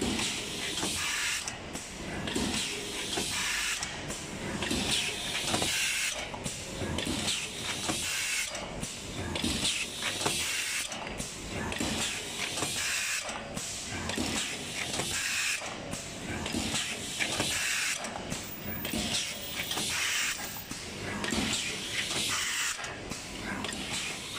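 DS-M2 boat-shaped paper plate forming machine running: a steady hiss with knocks, the pattern repeating about every two and a half seconds as the machine cycles.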